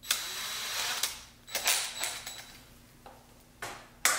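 DeWalt cordless drill run in short bursts to tighten its keyless chuck on a toy truck's axle rod. There is a burst of about a second at the start, another about a second and a half in, and two brief ones near the end.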